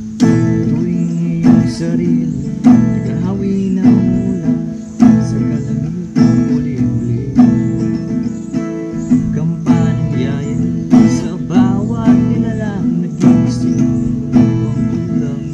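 Acoustic guitar strummed in a steady rhythm of chords, a stroke about every second.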